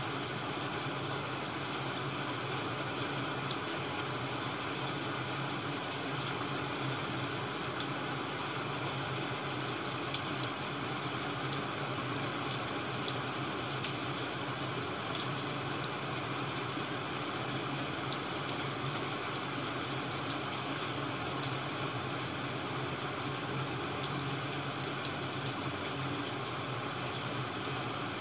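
Wood fire crackling as an ambience track: a steady hiss with scattered small pops and crackles.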